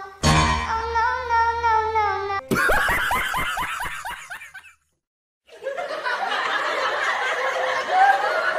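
A short musical sting, then a burst of rapid pulsed laughter. After a brief gap comes a second, fuller stretch of laughter.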